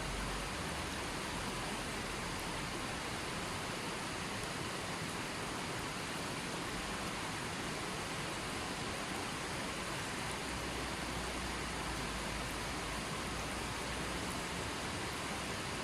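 Running water, flowing steadily with an even rushing sound.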